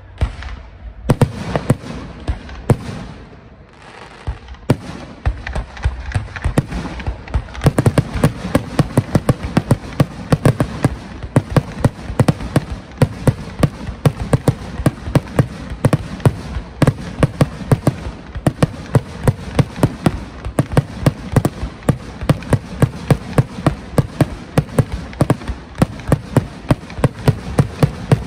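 Aerial fireworks shells bursting. A few separate bangs come first, then from about seven seconds in a rapid barrage of many bursts a second keeps going: the finale of the display.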